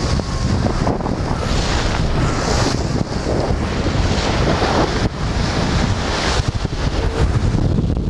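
Wind buffeting the microphone over the rush and splash of water along the hull of a sailing yacht under sail, with the hiss of the bow wash swelling up twice.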